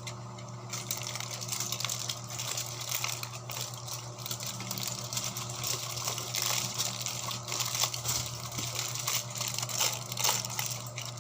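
Aluminum foil crinkling and rustling in irregular crackles as it is handled and folded around fish for grilling, over a steady low hum.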